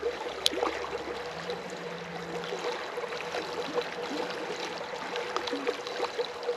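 Creek water running and burbling, with one sharp tick about half a second in.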